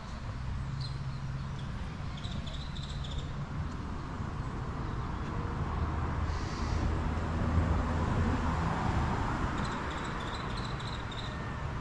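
Outdoor background noise: a low rumble like road traffic that swells about six seconds in and eases off again, with a few short, faint bird chirps.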